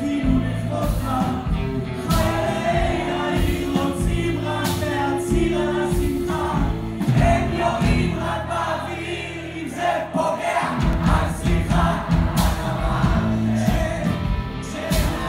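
Live band music with drums and several voices singing together.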